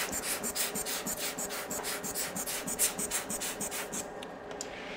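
Foam swab scrubbed rapidly back and forth over an iPhone logic board to clean off flux, about six scratchy strokes a second, stopping about four seconds in.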